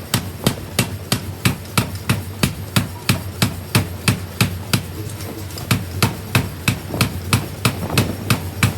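A metal-forming machine striking in a fast, even rhythm, about three and a half sharp metallic blows a second, over a low steady machine hum.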